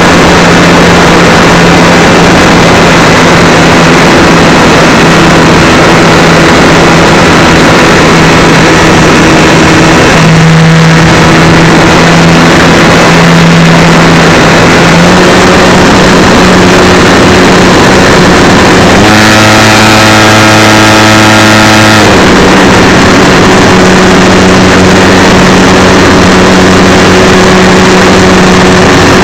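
Electric motor and propeller of a Super Cub LP RC plane, heard from its onboard camera in flight: a loud, steady motor hum with rushing air noise. The pitch steps up for about three seconds around two-thirds of the way through as the throttle is opened, then drops back.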